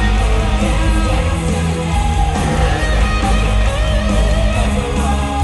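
Loud rock music with electric guitar over heavy bass, played through the show's sound system.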